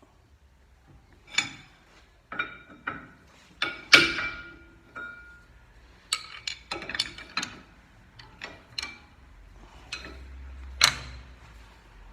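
Metal hand tools and brake parts clinking and knocking during disc-brake work, several strikes leaving a short metallic ring. The loudest knock comes about four seconds in, with another sharp one near the end.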